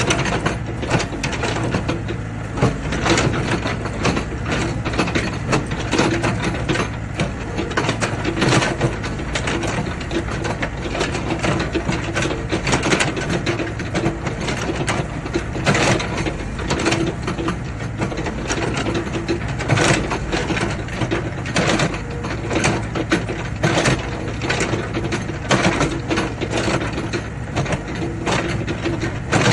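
Excavator running, a steady diesel engine hum overlaid by frequent irregular metal clanks and knocks.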